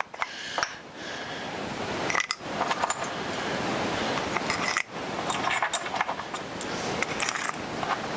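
Hand brace turning an adjustable (expansive) auger bit as it bores into a pine 2x4 block: a steady rasp of wood being cut, with small clicks throughout and a few short breaks in the cutting.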